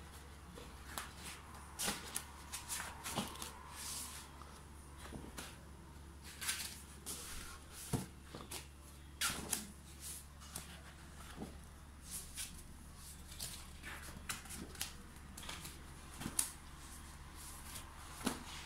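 Pages of a wallpaper sample book, with sheets of real wallpaper, being turned by hand. It gives repeated short paper rustles and flicks at irregular intervals, about one a second.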